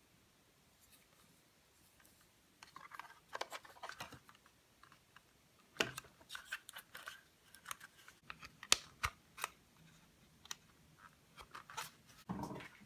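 Handling noise from a JJRC H8D quadcopter's hard plastic body and battery pack: irregular sharp clicks and short scrapes as the parts are turned and fitted together under the fingers, starting about two and a half seconds in, with a brief rustle near the end.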